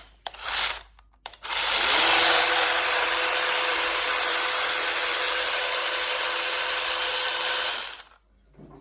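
Battery-powered mini chainsaw's electric motor and chain triggered in a short burst, then spinning up with a rising whine and running steadily for about six seconds before cutting off.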